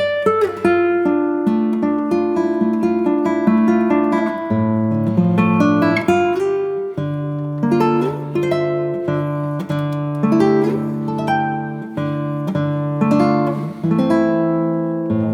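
Background music on acoustic guitar: a steady run of picked notes and chords, each ringing out and fading.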